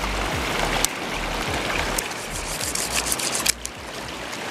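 River water rushing steadily over rocks, with a low rumble underneath and a few sharp clicks of small wooden pieces being handled, about one second, two seconds and three and a half seconds in.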